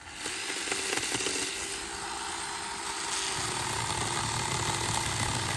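Hart chainsaw running at a steady speed, cutting cedar branches: it starts abruptly and runs with a steady whine under a loud, even cutting noise.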